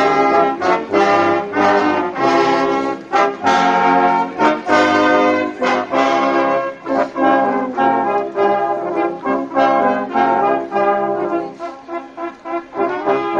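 Brass band playing a tune in a run of short, separate notes, easing off a little about eleven seconds in.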